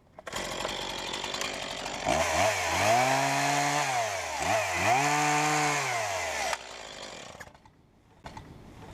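Chainsaw running at idle, then revved up and cutting wood twice. The engine note rises and sags with each cut and dips briefly between them. It drops back to idle and cuts off near the end.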